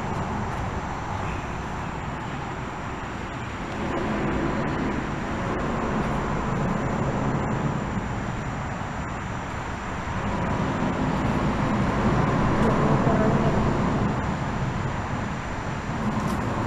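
Road traffic noise, a steady rumble that swells and fades as vehicles pass, heard from beneath a concrete bridge.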